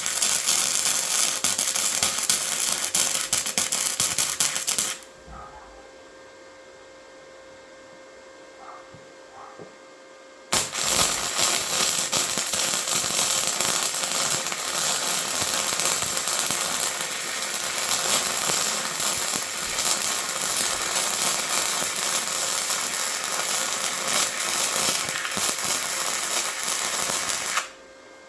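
Harbor Freight Titanium 125 flux-core wire welder running .035 wire, its arc crackling steadily as a bead is laid on scrap steel. One run stops about five seconds in; after a pause of about five seconds a second, longer run starts and cuts off sharply near the end.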